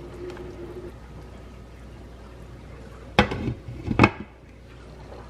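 Beef simmering in spiced broth in a frying pan, bubbling steadily, then two sharp clanks about a second apart near the end as the glass lid is set on the pan; after the second clank the simmering goes quieter and duller under the lid.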